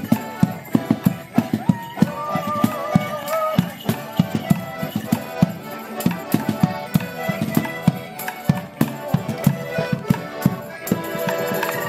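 Morris band of melodeons and a drum playing a folk dance tune, with frequent sharp knocks from the dancers' sticks and the drum. Near the end the knocks stop and the melodeons hold on.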